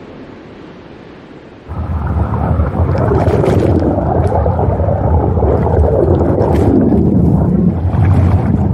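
Ocean surf breaking on a beach. About two seconds in, the sound jumps abruptly to a much louder, deep rushing noise that stays loud, with brief hissing splashes over it.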